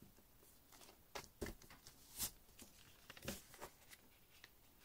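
Origami paper being folded and creased by hand: a run of short, soft crackles and rustles, the loudest about two seconds in and again just after three seconds.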